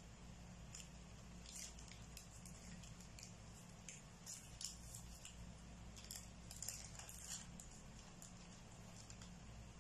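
Faint, soft rustles and light ticks of hands folding thin square pastry wrappers around apple filling and pressing the edges with a fork against a plate, over a low steady hum.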